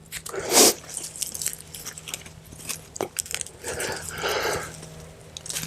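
Crunching and rustling of garden soil and roots as sweet potatoes are dug out by hand, in irregular bursts with a few sharp clicks.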